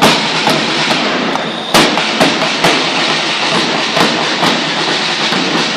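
School marching drum band: snare drums beating a steady march with a heavy bass drum stroke about twice a second.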